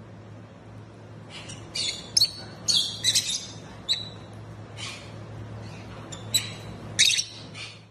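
A parrot giving a run of short, high chirps and squawks, several close together around two to three seconds in and a few more later, over a faint steady hum.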